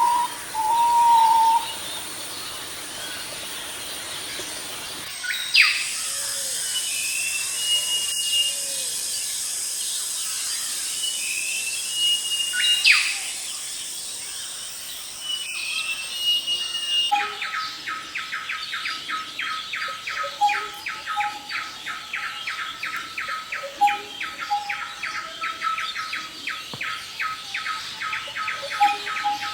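Songbirds chirping and calling, in three stretches with abrupt changes between them. The middle stretch has short calls over a steady high-pitched hiss. The last stretch, from about halfway through, is a fast, evenly repeated run of chirps.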